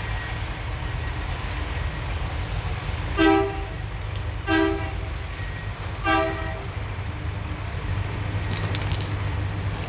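Three short blasts of a hi-rail work truck's horn, one pitch each, spaced about a second and a half apart, over a steady low rumble.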